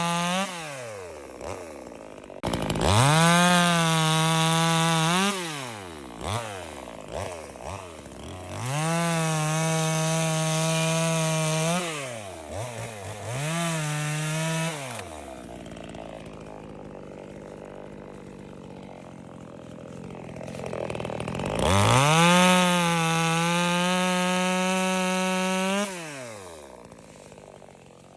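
Workfix mini chainsaw revving up to full speed and winding down again, several times over, with short and longer runs. There is a quieter, rougher stretch in the middle.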